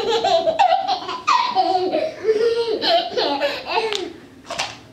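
Toddler laughing in a run of short, high-pitched bursts of giggles, trailing off near the end.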